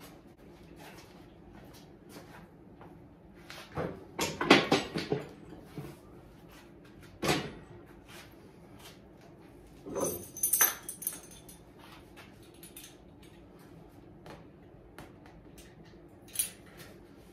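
Scattered knocks and metallic clanks of home-gym equipment being handled. The loudest cluster comes about four to five seconds in, and about ten seconds in there is a short ringing metal clink.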